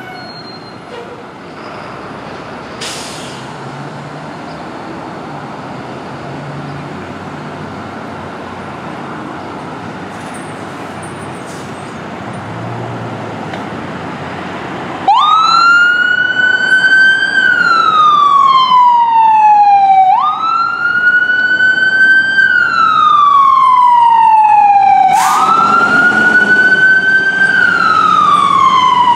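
Ambulance's engine running with a low rumble as it pulls out, with a brief hiss about three seconds in. About halfway through its siren comes on loud, wailing in cycles that each climb quickly and then fall slowly, about every five seconds.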